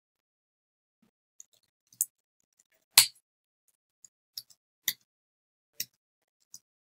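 Computer keyboard keys pressed one at a time, sharp single clicks at irregular gaps of about half a second to a second, with the loudest about three seconds in.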